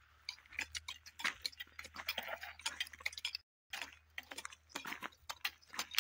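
Short-handled hand hoes chopping into dry, cloddy soil, with irregular clicks and crunches of the blades and clods as garlic cloves are planted. The sound cuts out briefly about halfway through.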